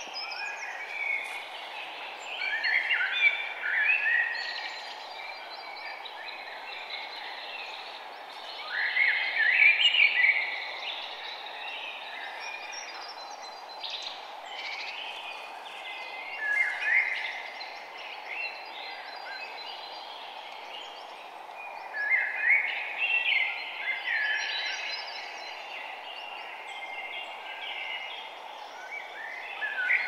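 Songbirds singing in repeated bursts of quick chirping phrases every few seconds, over a steady background hiss.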